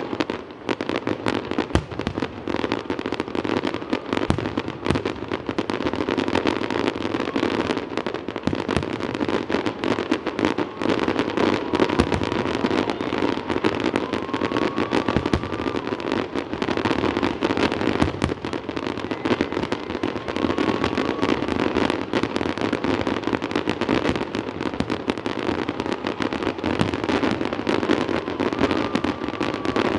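Fireworks display: a continuous rapid barrage of aerial shell bursts and crackle, with no pause.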